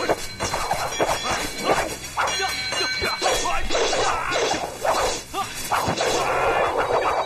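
Kung fu film fight sound mix: a rapid run of punch and kick hit effects and swishes, with shouts over music.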